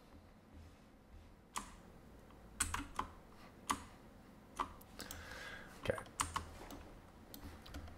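About ten sharp clicks of a computer mouse and keyboard at uneven intervals, made while working on a computer.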